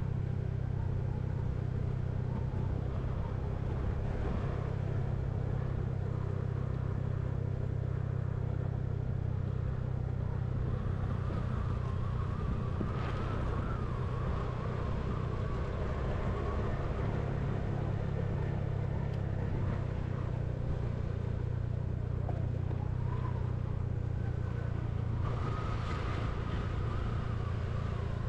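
Vehicle engine running steadily while driving along a road, a continuous low drone with road and wind noise.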